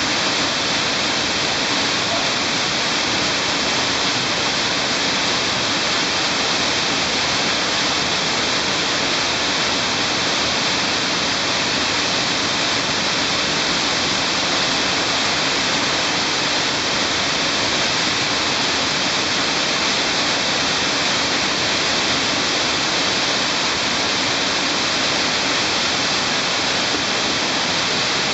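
Underground stream pouring down a cascade in a cave passage, a loud, steady, unbroken rush of water.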